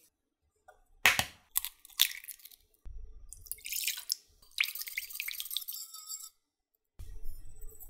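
Kitchen food-preparation sounds: three sharp clinks of utensils or dishes about a second in, then two longer stretches of noisy handling.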